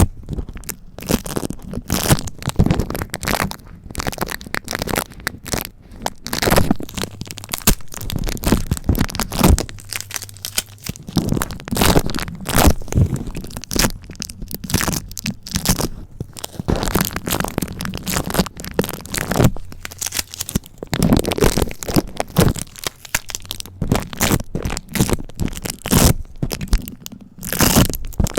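Adhesive tape pressed, peeled and crunched right against a bare microphone, giving close, irregular crackling and sticky popping that swells and eases in uneven waves.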